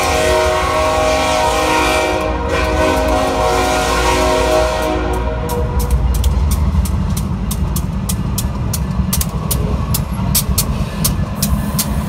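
Kansas City Southern GE ET44AC locomotive's horn sounding a held multi-note chord over a low rumble, fading out about five seconds in. Then the wheels click steadily over the rail joints, several clicks a second, as the train rolls by.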